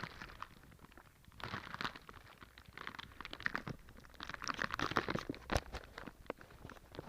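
Rustling and crinkling of shoe packaging being handled in irregular bursts, with a few sharp clicks and taps, strongest about halfway through.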